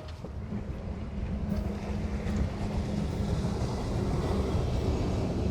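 Motor cruiser's engines running as it speeds closer, the steady hum growing gradually louder.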